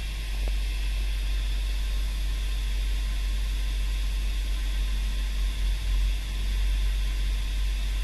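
GMC Acadia's V6 engine idling steadily at about 1000 rpm just after a restart, heard from inside the cabin.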